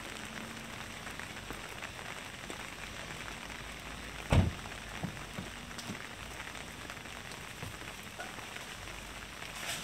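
Steady rain falling on wet pavement, with scattered small drip taps and a single dull thump about four seconds in.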